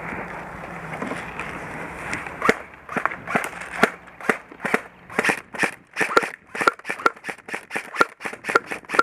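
Airsoft guns firing a run of sharp single pops, about two to three a second, beginning about two and a half seconds in after a stretch of steady noise.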